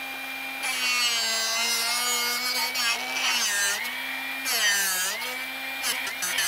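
Drill Doctor drill-bit sharpener's motor running with a steady hum while a drill bit in its chuck is ground on the diamond wheel as the chuck is turned. The grinding rasp comes in about a second in, and the motor's pitch dips twice as the bit loads it. A quick run of clicks follows near the end.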